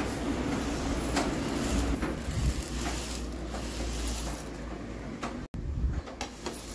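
Dry split lentils (masoor, moong, toor, chana and urad dal) being stirred and swept by hand across a plate, a continuous dry rustling and scraping of the grains.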